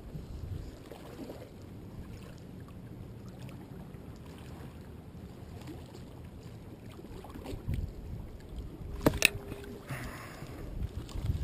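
Ocean waves washing against the jetty rocks, a low steady rumbling wash. There is a sharp click about nine seconds in.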